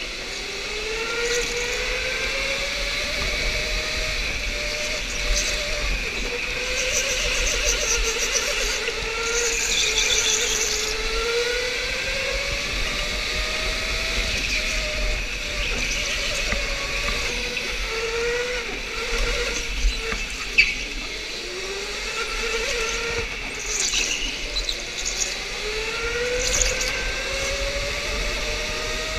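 Electric go-kart motor whining, its pitch rising each time the kart accelerates out of a corner, over and over. Short tyre squeals come in as the kart slides through the turns.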